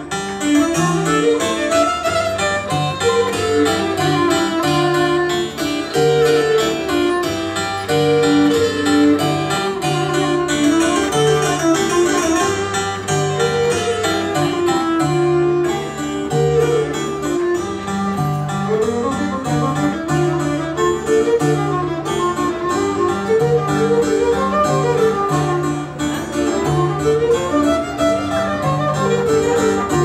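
A small medieval ensemble playing an instrumental piece live: a small fiddle and plucked strings over a repeating low bass figure.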